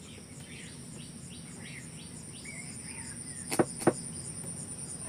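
Steady high-pitched insect drone, like crickets, with a few faint chirps in the background. About three and a half seconds in come two sharp clicks a quarter second apart as the cap of a small glass jar is handled.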